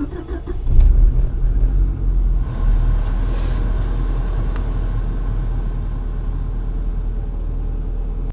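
Renault Arkana petrol engine cold-starting at −17 °C with the clutch pressed: it catches about a second in with a loud rumble, then settles into a steady idle. It started a bit reluctantly ("туговато завелась") in the frost.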